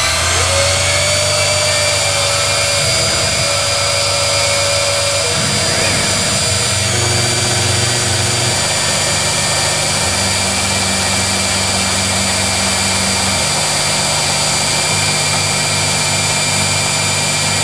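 CNC mill running a cutting program: the spindle runs at speed with a steady high whine, while the lower hum of the axis motors shifts in pitch every few seconds as the end mill moves through a plastic enclosure lid.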